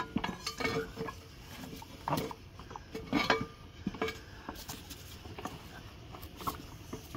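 Tire irons clinking and scraping against a mower wheel's rim as a stubborn tire bead is levered off, in irregular knocks and clicks.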